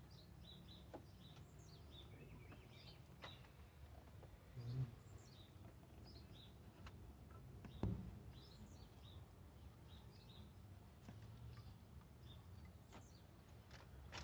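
Near silence with small birds chirping faintly in the background throughout, over a low steady hum. A few light clicks, a dull bump about a third of the way in and a sharper knock a little after halfway.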